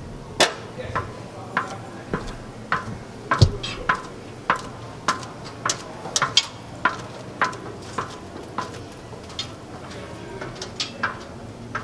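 Footsteps climbing metal stairs: a sharp clank at each step on the metal treads, about one every half second to two-thirds of a second.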